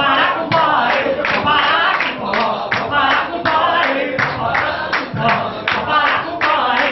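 A woman singing into a microphone, with a group of voices singing along and hands clapping a beat.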